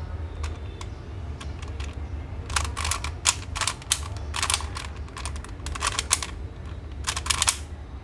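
Plastic Latch Cube puzzle being twisted by hand: runs of quick clicking and clacking as its layers are turned, in several bursts with single clicks between, over a low steady hum.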